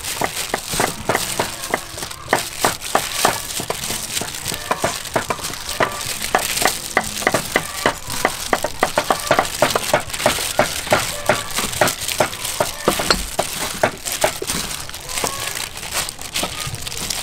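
Raw pork liver slices being squeezed and mixed by a hand in a plastic-bag glove in a metal tray: an uneven run of wet squelches and slaps, several a second, with plastic crinkling.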